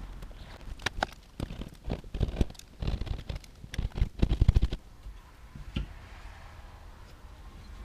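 Irregular clicks, scratches and knocks of hand work on ceiling drywall as an old-work electrical box is fitted into its cut hole and the spots for its tabs are marked out. The handling is busiest in the first five seconds, with a quick run of taps about four seconds in, then dies down to occasional small clicks.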